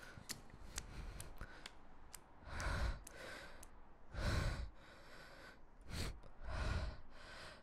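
A person breathing heavily, with about four long, sigh-like breaths and a few faint clicks between them.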